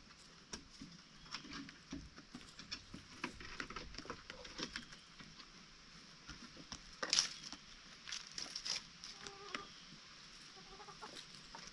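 Chickens moving about, making irregular small clicks and taps, with a few short soft clucks near the end. A sharper tap about seven seconds in is the loudest sound.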